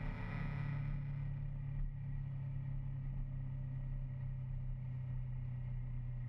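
Steady low engine drone and road noise from the vehicle carrying the camera at cruising speed, with a brief brighter rushing noise in the first second.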